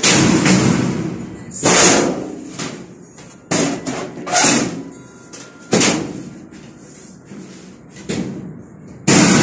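Sheet-metal panels of a steel cabinet drawer being handled and knocked together during assembly: a series of sudden metal bangs and clatters, about six or seven, each fading away after it.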